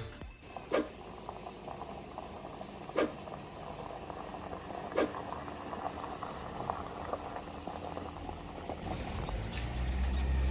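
Steady bubbling of liquid with a fine crackle, broken by three sharp clicks about two seconds apart.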